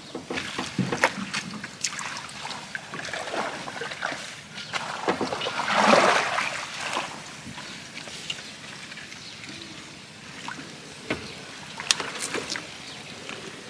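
Water sloshing and dripping around a small paddled boat as a fishing line is hauled up through water hyacinth, with scattered light knocks. About six seconds in there is a louder swell of splashing and rustling.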